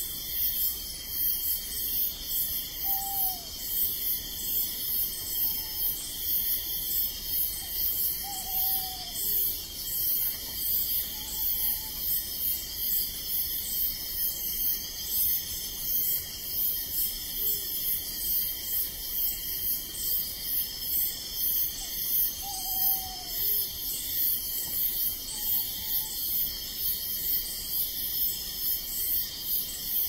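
Crickets chirping in a steady, evenly pulsing chorus, with other insects trilling high and steady. A few short, falling owl hoots sound through it: three clearer ones, about 3, 9 and 23 seconds in, each followed a few seconds later by a fainter one.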